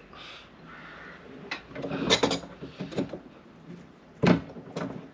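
Pliers gripping and turning the plastic nut of a tank fitting on a hollow plastic waste water tank: a light rubbing, then irregular clicks and hollow plastic knocks, the loudest about four seconds in.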